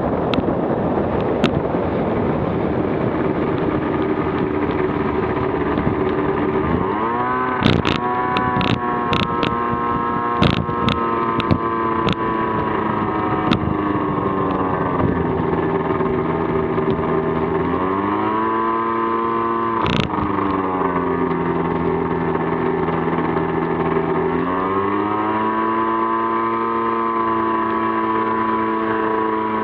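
Light aircraft's piston engine and propeller running while taxiing across grass. A rushing wind noise gives way about seven seconds in to a clear, steady engine note. The engine speed then falls and rises twice, and a scatter of sharp clicks comes between about seven and fourteen seconds in, with one more about twenty seconds in.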